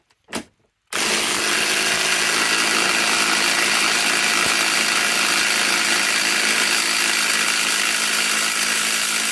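DeWalt Atomic DCF921 cordless 1/2-inch impact wrench on speed 2 running hard for about nine seconds, tightening a large rusted nut. It starts about a second in.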